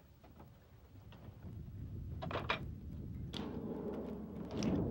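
Several sharp clicks and knocks of a pilot's harness buckles and fittings being fastened in a jet cockpit, over a low rumble that grows louder about three seconds in.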